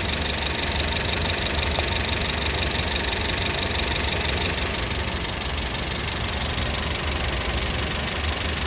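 2012 Honda Civic EX's 1.8-litre four-cylinder engine idling steadily with the air conditioning off. A faint high whine fades out about halfway through.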